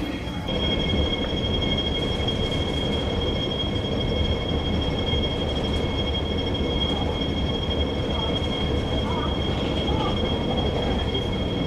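Escalator running: a steady mechanical hum with a high, steady whine over it.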